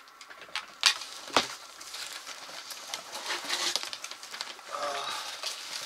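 Crumpled newspaper packing rustling and crinkling as a freshly cut shipping box is opened and the paper is handled, with two sharp knocks about a second in.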